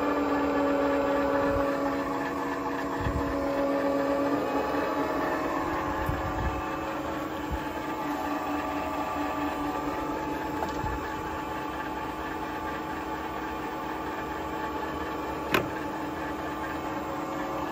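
Aciera F3 milling machine running, its motor giving a steady hum, with a single sharp click near the end.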